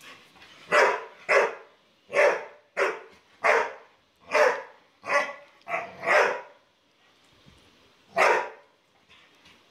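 Rottweiler barking: nine barks in quick succession, then one more after a pause of about two seconds.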